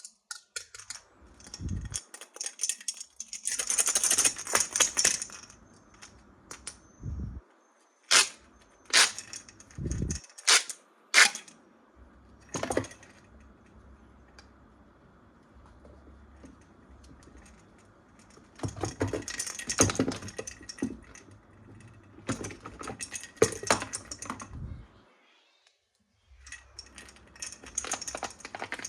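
Plastic toys and packaging being handled: bursts of rattling and rustling clatter, with a run of five sharp clicks roughly a second apart in the middle.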